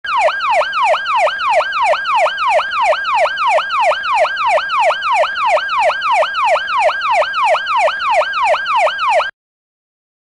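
Electronic siren sounding a fast falling whoop, about three sweeps a second, each dropping sharply in pitch. It cuts off abruptly after about nine seconds.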